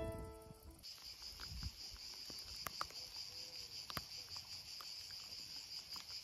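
A faint, steady, high-pitched chorus of insects chirping comes in about a second in, as piano music ends. A few faint ticks sound over it.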